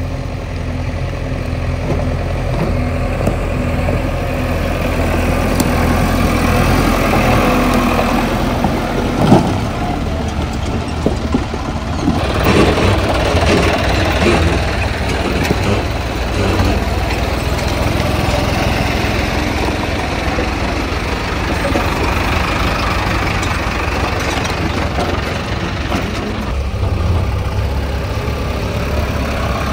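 Tractor diesel engine running steadily, with scattered knocks and rattles, the sharpest knock about nine seconds in.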